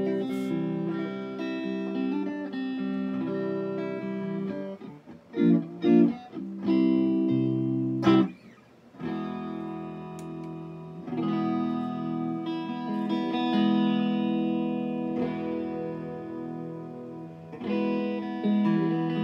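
Electric guitar played through a freshly retubed Fender Deluxe Reverb tube amp: ringing chords, a few short stabbed chords about midway, then long sustained chords.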